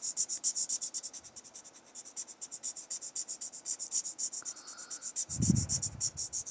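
Felt-tip marker scratching back and forth on paper in quick, even strokes, about eight a second, while colouring in a shaded area. A soft low thump about five and a half seconds in.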